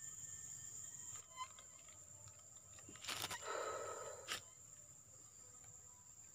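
Insects keep up a steady high-pitched drone. About three seconds in comes a brief rustle, ending in a sharp click or knock about a second later.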